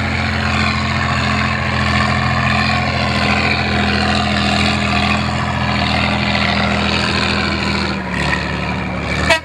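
Off-road trial vehicle's engine running steadily under load as it drives through a muddy water pit and climbs the bank. The engine note drops about eight seconds in, and a short loud knock comes just before the end.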